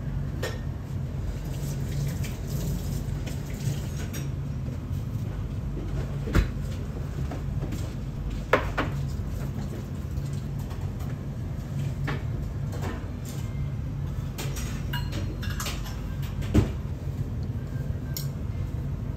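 Restaurant ambience: a steady low hum with scattered small clinks and taps of dishes and utensils, three sharper knocks standing out several seconds apart.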